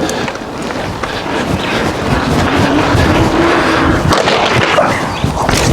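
Mountain bike being ridden over jump ramps: a steady rushing noise of tyres and moving air, broken by a few sharp knocks about four seconds in and again near the end.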